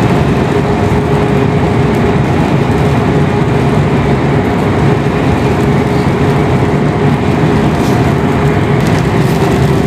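Truck cab interior noise while driving at highway speed: a steady engine drone with a constant low hum under the rumble of tyres on the road.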